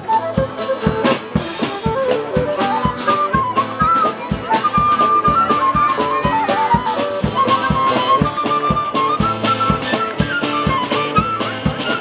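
Small street band playing an instrumental passage: flutes carry the melody over strummed acoustic guitars, sousaphone and a steady drum beat.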